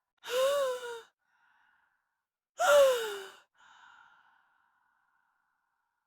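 A woman's frightened, breathy voiced sighs: two of them, one about a quarter second in and a louder one near three seconds that slides down in pitch, with a faint steady hum in the gaps.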